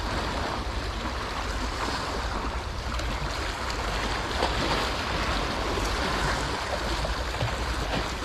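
Sea water washing and splashing against a rocky shore, a steady rushing sound.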